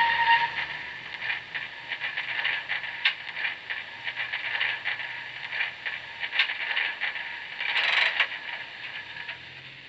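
HOm-scale model train rolling slowly and coming to a stop, with an irregular clicking, rattling noise from the running gear and small decoder speaker that fades away. There is a brief louder burst about eight seconds in.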